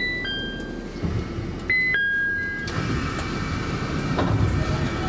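Train door chime sounding twice, each a two-note 'ding-dong' stepping down in pitch, while the train stands at the platform; a rushing hiss of air follows from about halfway through.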